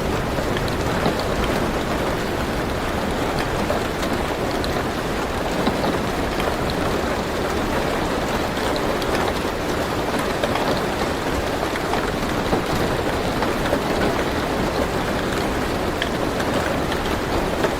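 Steady rain on a car roof heard from inside the car, an even hiss with many small individual drops ticking.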